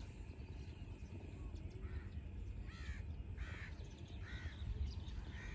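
A crow cawing about five times, short harsh calls roughly once a second starting about two seconds in, over a steady low rumble.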